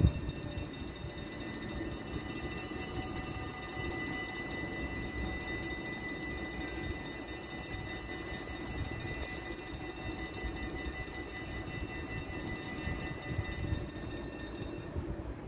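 Electric passenger train approaching slowly: a steady high whine made of several tones over a low rumble. The whine stops shortly before the end.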